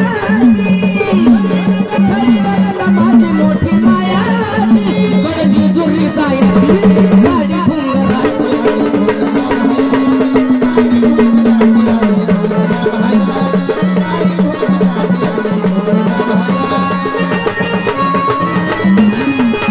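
Marathi gondhal folk music: rhythmic percussion with rattles over a steady low drone, with a winding melodic line and one long held note that slowly falls in pitch in the middle.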